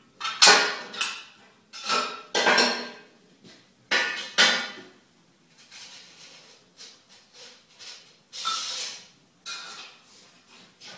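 Sheet metal and metal hand tools being handled: a run of sharp metallic clanks, some ringing briefly, with quieter clicks in the middle.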